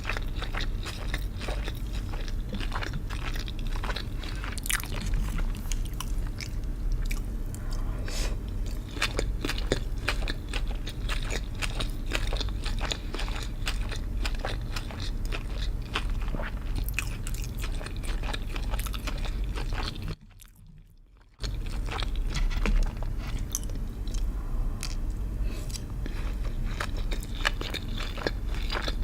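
Close-miked eating: crunchy food being bitten and chewed, a dense run of crisp crunches and mouth sounds, broken by a gap of about a second some twenty seconds in.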